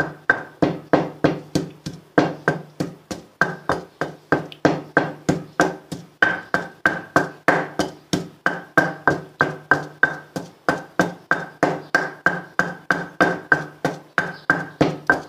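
Pestle pounding garlic, salt and red chilli in a stone mortar: steady, even knocks, about three a second, each with a short ring from the stone.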